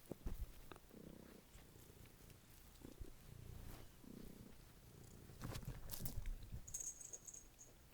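Domestic cat purring steadily, with two short trills about one and four seconds in, and a few sharp knocks from movement about five and a half to six seconds in.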